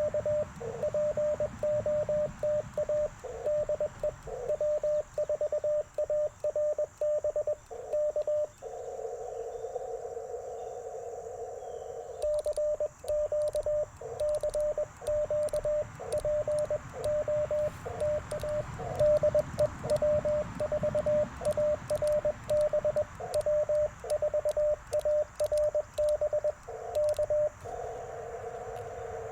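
Morse code (CW) from an Icom IC-705 amateur radio transceiver: a single steady tone keyed on and off in dots and dashes. It pauses about nine seconds in for a few seconds, and again near the end, where the hiss of the receiver's narrow CW filter comes through.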